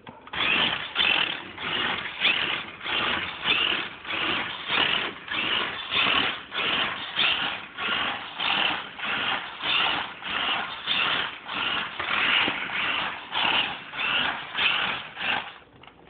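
A toy remote-control car's small electric drive motor and plastic gearbox whirring in short bursts, about one and a half a second, as its programmed controller switches it back and forth between forward and reverse.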